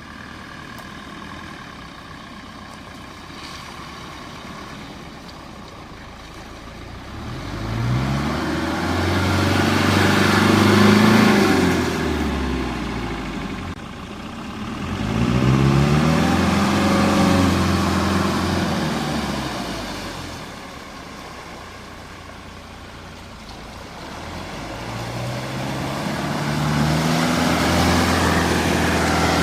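Off-road 4x4's engine running, accelerating three times with the pitch climbing and getting louder, then easing back to a lower, quieter running in between.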